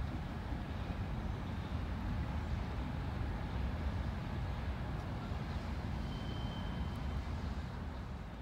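Steady low rumble of distant vehicles, with a faint thin tone about six seconds in.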